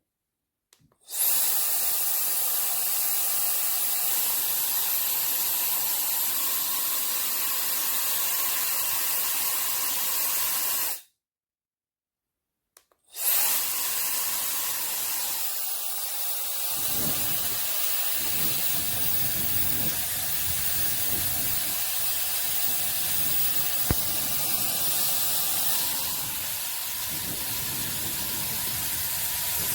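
Hair dryer blowing: a steady rush of air that starts about a second in, cuts off for about two seconds near the middle, then runs again.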